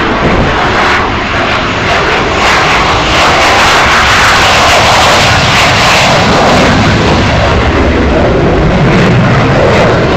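Hawker Hunter's Rolls-Royce Avon turbojet at takeoff power, a loud, steady jet roar that swells about two to three seconds in as the jet accelerates down the runway and lifts off.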